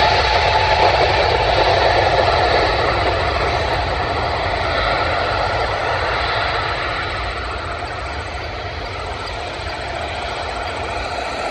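Jet engine noise from a Boeing 777-300ER's twin GE90 turbofans, a steady rush over a low rumble that slowly fades as the airliner moves away down the runway.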